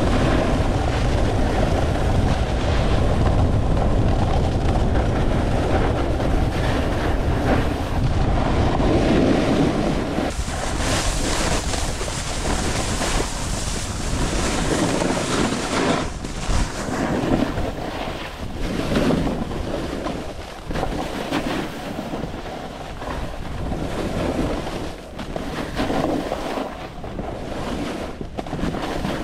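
Wind buffeting the camera microphone while snowboarding, a heavy low rumble for the first ten seconds. From about ten seconds in, the snowboard's scraping hiss over chopped-up snow comes up, swelling and fading with each turn.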